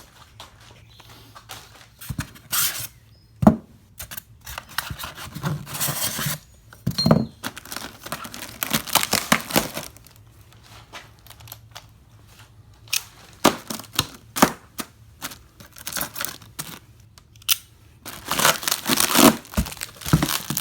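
Packaging being torn and crinkled while loose parts are lifted out of a shipping box, in irregular rustling bursts broken by sharp knocks and clunks as pieces are set down.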